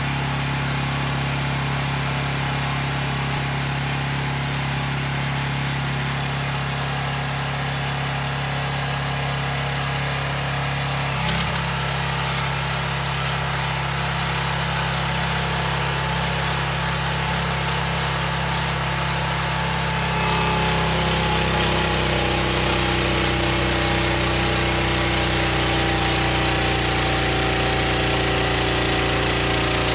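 Small engine of a wheeled hydraulic post hole auger running steadily while the auger head drives a steel ground screw into the soil. About a third of the way in there is a click and the engine note shifts. About two-thirds in it grows a little louder and its pitch falls slowly as the screw goes deeper.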